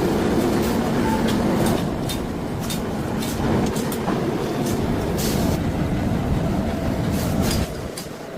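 Heavy factory machinery running with a loud, continuous rumble and rattle, with frequent sharp metallic clanks. The rumble drops off suddenly near the end.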